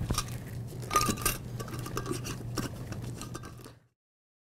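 Light clinks and taps of dishes and utensils at a kitchen counter, over a steady low hum. The sound cuts off abruptly near the end.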